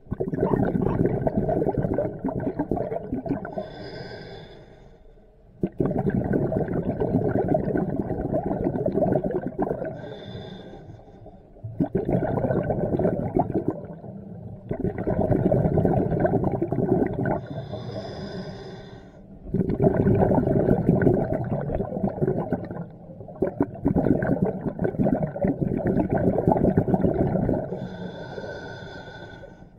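Scuba diver breathing through a regulator underwater. Loud rushes of exhaled bubbles come every four to six seconds, and between them quieter inhalations carry a thin whistling tone from the regulator.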